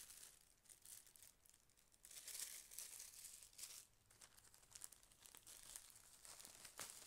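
Faint crinkling of a plastic bag being handled, in irregular bursts, loudest about two seconds in.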